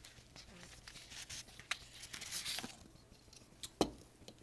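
Nylon multi-tool sheath being handled: rustling and crinkling fabric with small clicks, and one sharp knock near the end.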